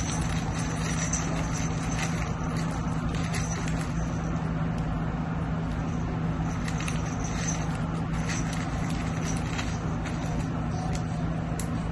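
A steady low mechanical hum at an even level, with a few faint light clicks and rustles over it.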